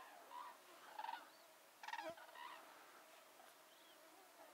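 Common cranes calling from a flock flying over at a distance: several faint trumpeting calls in the first couple of seconds, weaker and sparser after that.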